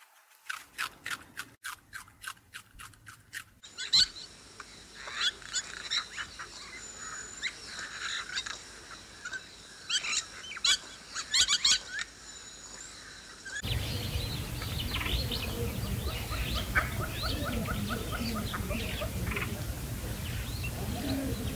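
Rabbits chewing and crunching greens, a quick run of crisp clicks about three a second. After a cut come scattered sharp clicks and high thin bird chirps, and near the end short bird calls over a louder steady outdoor background.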